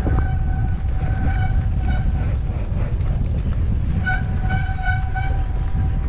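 Mountain bike brakes squealing in two pulsing stretches, the first near the start and the second about four seconds in, over steady wind noise and rumble from riding the trail.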